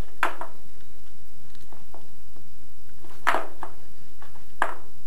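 White polypropylene pipe fittings being handled and pressed together by hand on a wooden board, giving a few sharp plastic clicks and knocks, three of them louder.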